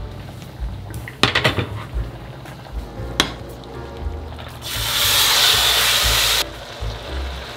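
A few metal clinks of stainless cookware, then food sizzling loudly in a stainless steel frying pan on an induction hob for about two seconds as it is stirred, cutting off abruptly.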